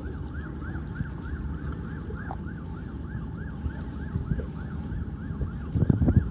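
Emergency vehicle siren sounding in a fast yelp, its pitch swooping up and down about four times a second, over wind rumble on the microphone that gusts louder near the end.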